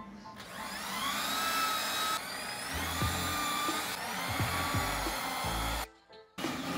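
An electric power tool's motor running with a high whine that rises and levels off, over background music; the sound cuts out briefly near the end.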